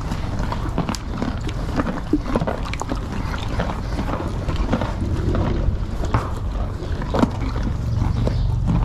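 Horses crunching carrots: many short, irregular crunches and knocks over a steady low rumble of wind on the microphone.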